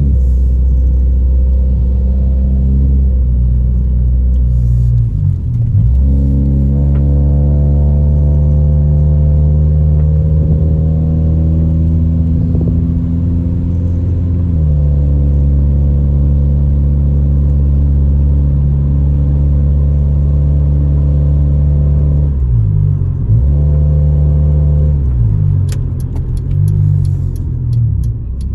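Honda Civic EJ9's four-cylinder engine heard from inside the car while driving with an automatic gearbox. The engine note climbs slowly and drops sharply at gear changes about six and fifteen seconds in, and dips again a little after twenty-two seconds. The engine has misfire codes logged on all four cylinders. A few light clicks and rattles come near the end.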